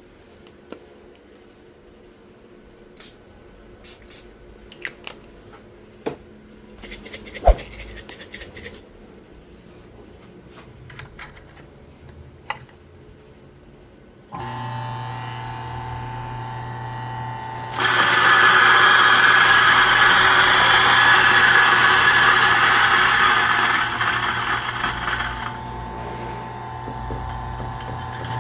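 Small handling clicks and a brief rustle, then about halfway through an electric coffee grinder's motor starts with a steady hum. A few seconds later the loud, gritty noise of beans being ground joins it, tails off after several seconds, and the motor runs on alone.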